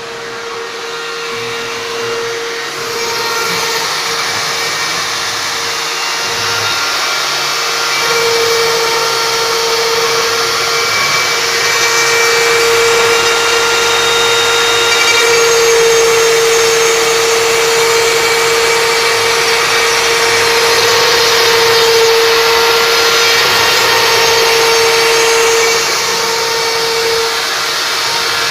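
CNC router spindle running steadily with a constant whine as it cuts wood, with cutting noise on top. The sound grows louder over the first several seconds, then holds.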